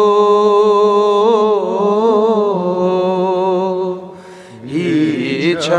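A man's voice singing a Sufi nasheed: one long held note with small melodic turns in the middle. A brief break comes about four seconds in, then a new phrase rises in pitch near the end.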